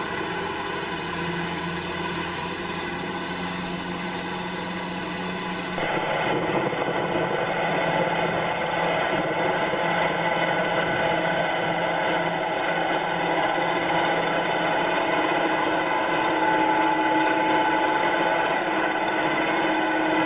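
Farm machinery engines running steadily, a continuous even drone. About six seconds in it cuts to a different, louder and duller engine recording.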